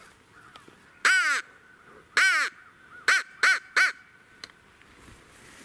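Hand-blown crow call giving five caws: two drawn-out caws about a second apart, then three short caws in quick succession.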